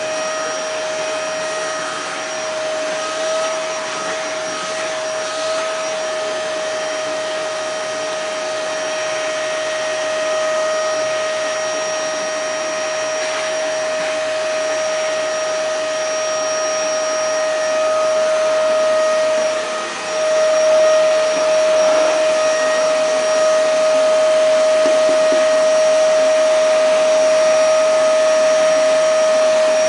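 Vacuum cleaner running steadily, its motor whine holding one pitch over a broad hiss. About two-thirds of the way through the whine briefly dips, then it runs on slightly louder.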